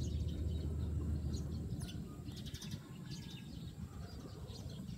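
Birds chirping in short scattered calls in the background, over a low steady hum that stops about a third of the way in.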